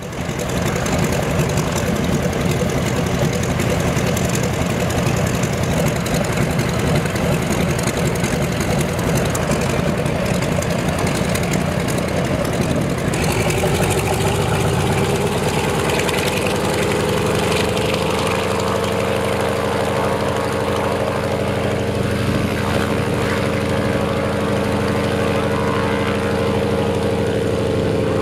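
Antonov An-2's nine-cylinder radial engine running with the propeller turning. About halfway through, the engine's hum rises a little in pitch and then holds steady.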